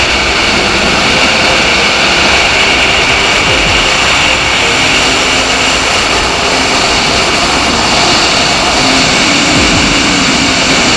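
Motorcycle engine running steadily at speed under a heavy rush of wind on the microphone.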